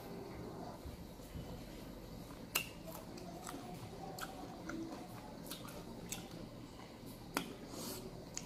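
Faint chewing of a ber (Indian jujube) fruit, with soft mouth sounds and a few small clicks scattered through.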